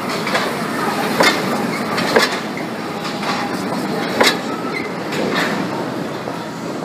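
Rubber-tyred Paris Metro Line 11 train running past along the platform: a steady rumble and hiss of the cars going by, with a sharp clack every second or so.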